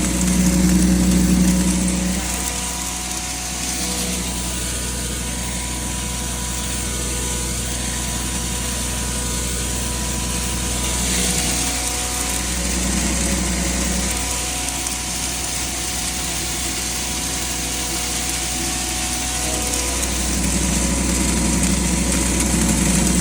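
A 7.5 hp maize and poultry-feed grinder running steadily with a low hum and a thin constant whine while grain is fed in. Its low drone swells several times, near the start, about halfway through and near the end.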